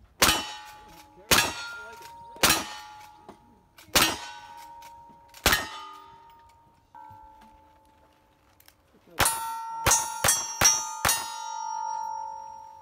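Pistol shots at steel targets, each crack followed by the steel ringing: five shots over about five seconds, a pause, then five quicker shots from the second pistol. The steel rings on for a couple of seconds after the last hit.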